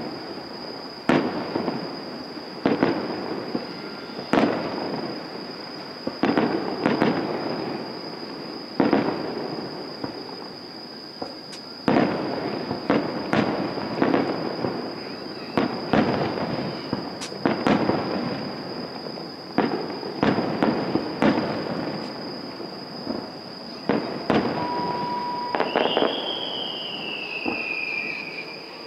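Aerial firework shells bursting one after another, a sharp boom every second or two, each trailing off in a rolling echo and crackle. Near the end a high whistle falls slowly in pitch for a couple of seconds.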